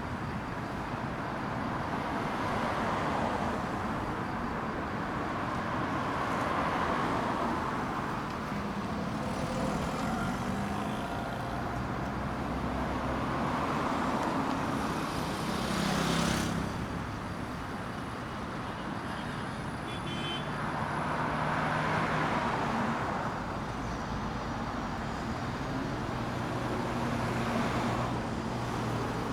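Street traffic: cars passing one after another, each rising and fading in turn, about seven passes in all over a steady background of tyre and engine noise. The closest and quickest pass comes about sixteen seconds in.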